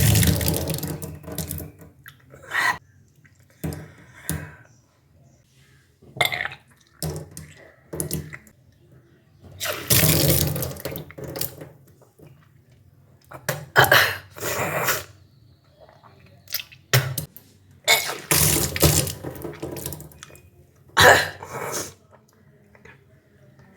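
A person retching and spewing water out in about a dozen irregular gushes, each a second or so long, with short quiet gaps between. This is kunjal kriya: water drunk on an empty stomach is deliberately vomited back up to cleanse the stomach.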